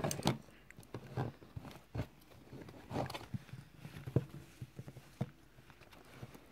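Pencil writing on a paper workbook page: irregular light scratches and taps of the lead on the paper.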